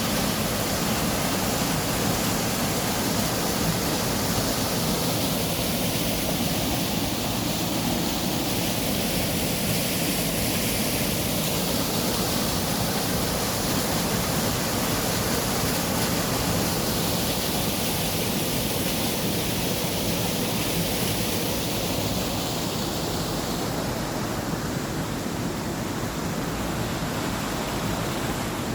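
Steady rushing noise with no distinct events, slightly quieter near the end.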